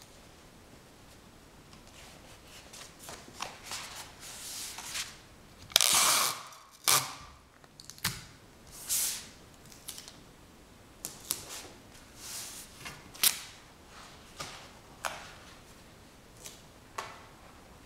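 Irregular sharp clicks and short crackling, rustling bursts, starting a few seconds in, the loudest a half-second crackle about six seconds in.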